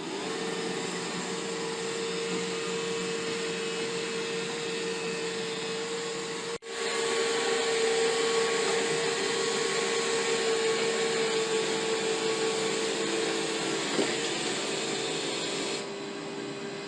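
iRobot Roomba i7+ robot vacuum running with a steady motor hum and whine that spins up at the start. It breaks off for an instant about six and a half seconds in and comes back louder.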